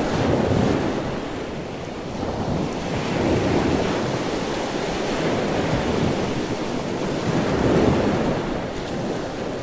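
Small sea waves washing in over shallow water on a sandy beach, the surf swelling and easing every few seconds, with wind buffeting the microphone.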